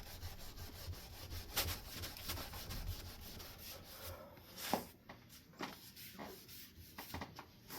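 A cleaning wipe rubbed back and forth across a dusty Hunter Stratford ceiling fan blade for about four seconds, then a few light taps and handling noises as the rubbing stops.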